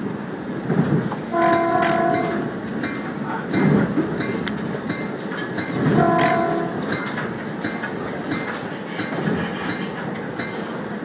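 Train horn sounding twice, each blast under a second long and about four and a half seconds apart, heard from aboard the moving train. Under it runs the steady rumble of the wheels on the rails with repeated clicks over the track joints and switches.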